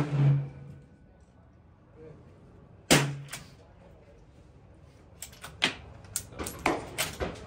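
Long-range precision rifle fired once about three seconds in: a single loud crack with a short echo. Over the last two seconds a quick run of lighter sharp cracks and clicks follows, while the shooter works the bolt.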